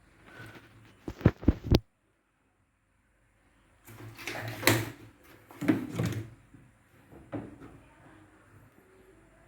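Three sharp knocks in quick succession, then after a short break a few seconds of clattering, rubbing handling noise and one lighter knock.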